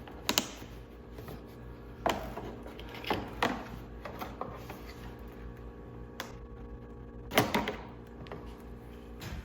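Scattered clicks and knocks of hand tools and hard plastic seat trim being worked on, the loudest knock about two-thirds of the way through, over a steady low hum.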